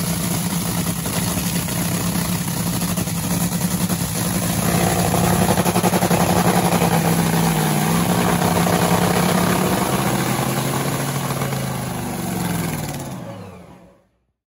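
Clay Millican's Top Fuel dragster engine, a supercharged nitro-burning Hemi V8, running loud and steady, a little louder from about five seconds in. Near the end its pitch falls away as it winds down and shuts off.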